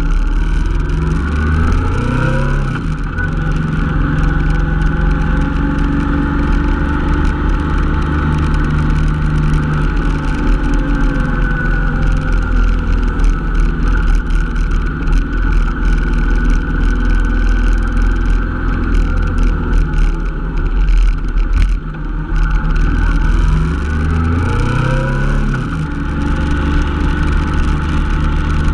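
Honda NT700V Deauville's 680 cc V-twin engine running under way. It accelerates twice, about two seconds in and again near the end, each time the pitch climbing and then dropping at a gear change.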